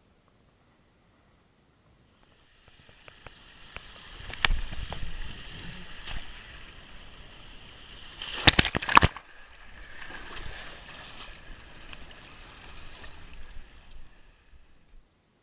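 Water rushing and splashing as a rider slides down a water slide and into its water-filled runout, heard from a camera carried by the rider. After a couple of quiet seconds the sliding noise starts, with a few knocks, then a loud burst of splashing just past the middle as the rider hits the runout water, followed by sloshing that stops shortly before the end.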